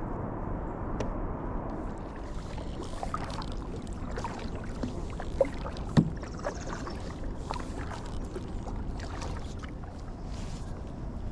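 A kayak on the water: steady low noise with scattered small knocks and clicks against the hull and gear, and two sharper knocks about halfway through.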